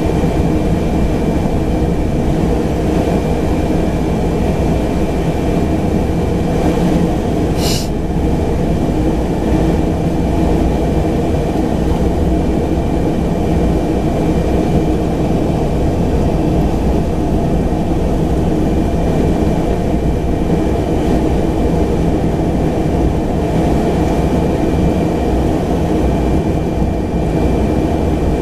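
A Pilatus PC-12's single Pratt & Whitney Canada PT6A turboprop engine and propeller, heard from inside the cabin as the aircraft taxis: a steady, dense rumble with a thin high whine over it. A brief sharp click comes about eight seconds in.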